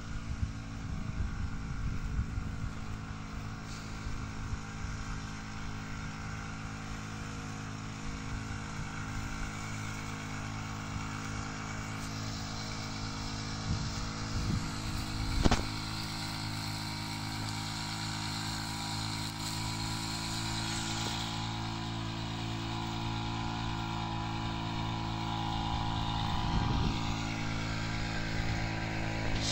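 Small engine of a backpack power sprayer (mist blower) running steadily while it sprays a crop. One sharp knock about halfway through, and the sound grows slightly louder near the end.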